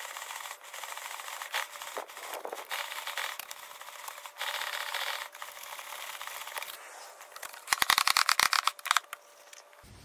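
WD-40 aerosol hissing onto a motorcycle drive chain, with a nylon brush scrubbing the chain links. Near the end comes a short, loud burst of rapid rattling clicks.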